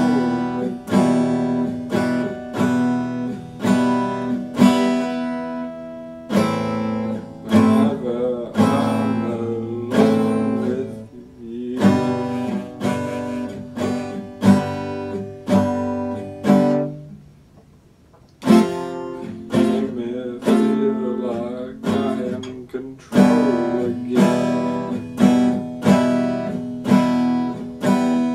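Acoustic guitar played solo, chords struck about once a second and left to ring, with a short pause about two-thirds of the way through before the playing resumes.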